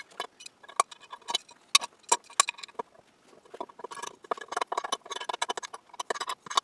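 Small metal tool parts clinking and rattling as they are handled, in quick irregular clicks, some with a short metallic ring.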